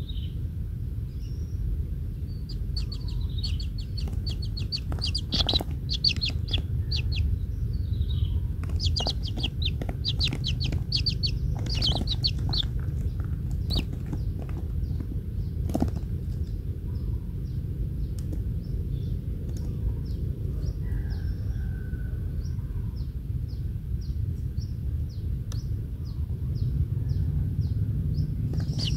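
A bird calling: quick, high-pitched chattering trills, then a slower run of short, high notes about two a second, over a steady low rumble.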